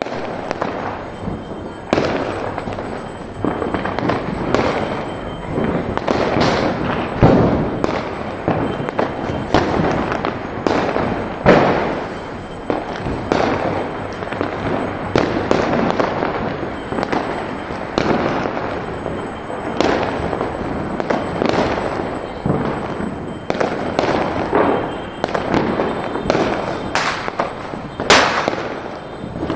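Diwali firecrackers going off without pause: a dense, continuous crackle with many irregular sharp bangs layered on top, a few of them louder than the rest.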